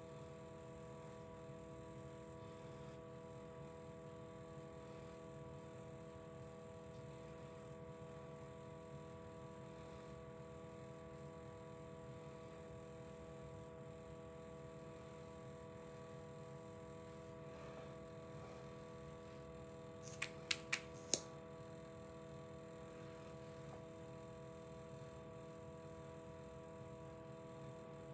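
Faint steady electrical hum of room tone, broken about twenty seconds in by four quick sharp clicks within about a second.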